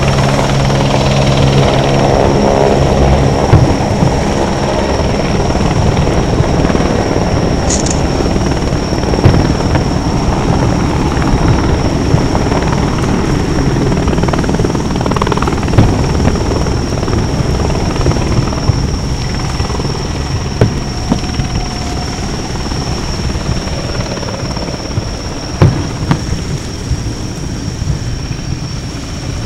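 Aerial firework shells bursting at a distance: a continuous low rumble of echoing booms, with a few sharper bangs standing out above it.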